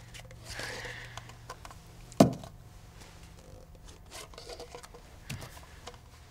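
Small handling sounds of paper plates and plastic cups on a party table: a soft rustle, then one sharp knock about two seconds in, then a few light clicks, over a steady low hum.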